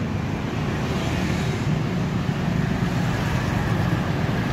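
Steady road traffic noise: a continuous rumble of vehicles passing on a main road.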